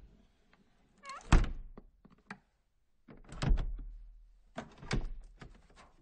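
Knocks and thuds on wood, coming in three clusters with a single knock between the first two; a short creak opens the first cluster.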